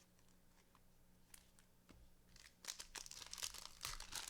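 Foil trading-card pack wrapper crinkling as it is torn open: quiet at first, then a run of short rustles over the last second and a half.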